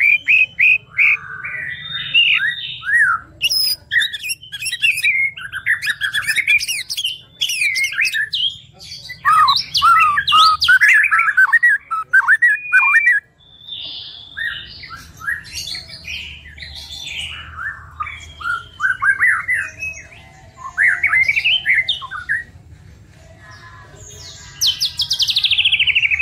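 White-rumped shama (murai batu) singing a long, varied song: quick runs of whistled and chattering notes with short breaks. It ends in a fast trill that falls steeply in pitch.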